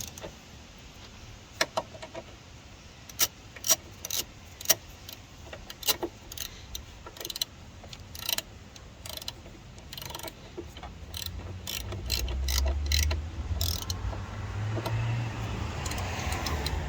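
Metal tool clicks and clinks, scattered and irregular, from hand-tightening the strut's top-mount nuts. A low rumble builds up in the second half.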